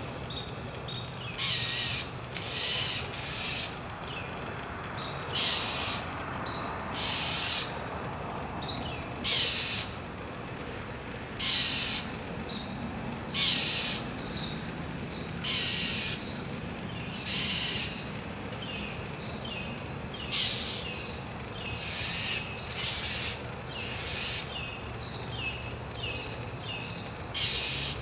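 Northern mockingbird giving short, harsh, raspy scold calls about every two seconds, the call it uses when mobbing a barred owl. A steady high insect drone runs underneath.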